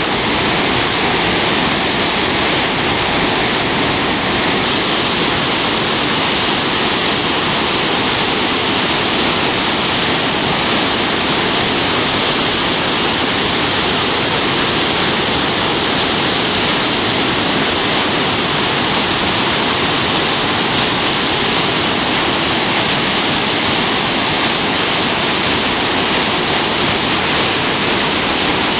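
Loud, steady roar of whitewater on the Spokane River near flood stage, pouring over its falls.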